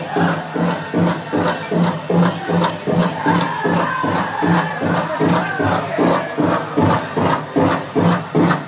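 Powwow drum and singers: a large drum struck in a steady even beat, about two and a half beats a second, with the drum group's singing over it and jingling bells.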